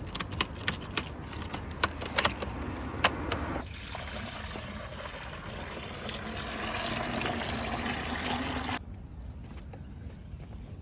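A series of sharp clicks and knocks, then, about three and a half seconds in, a steady rush of pouring water that cuts off abruptly a couple of seconds before the end.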